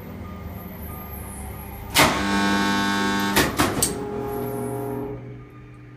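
Electrical drive gear of a 1951 wharf crane being worked: a low steady hum, then a sharp clunk about two seconds in as a loud electric hum with many overtones starts. Several more clunks follow about a second and a half later, and the hum fades out around five seconds in.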